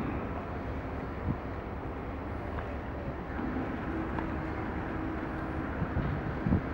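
Small harbour ferry's engine running with a low, steady hum as the boat pulls away from the landing stage, over a steady noisy background.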